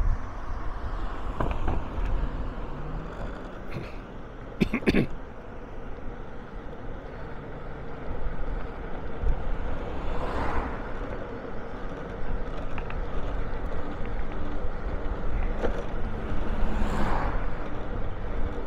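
Street traffic heard from a moving vehicle: a steady low engine and road rumble. Two passing vehicles swell up and fade away, one about halfway through and one near the end, and a short sharp sound comes about a quarter of the way in.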